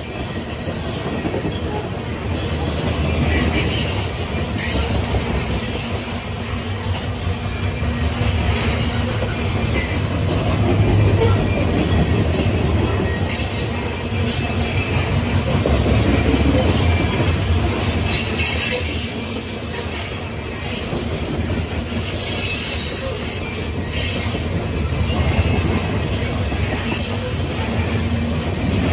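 A CSX coal train's open-top hopper cars rolling past: a steady rumble of steel wheels on rail that swells and eases, with brief high wheel squeals now and then.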